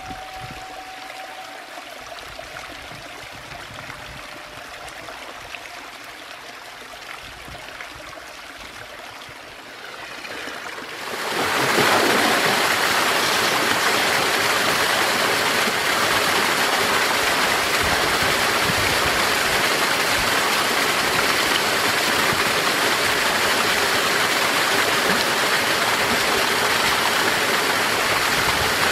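Mountain water running over rock: a quieter trickle into a rock pool at first, then about eleven seconds in the much louder, steady rush of a small waterfall pouring into a pool.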